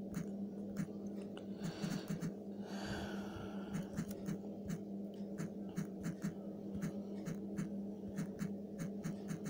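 Typing on a smartphone's touchscreen keyboard: light, irregular clicks, about two or three a second, one for each key press, over a steady low electrical hum. A short rush of noise comes about three seconds in.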